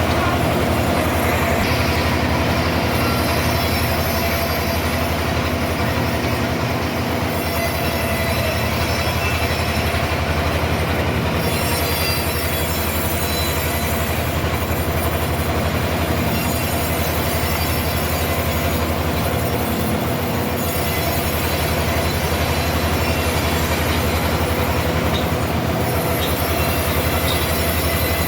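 Sawmill running steadily as the blade cuts through a trembesi log: a loud continuous machine noise with a low hum and a steady high squeal.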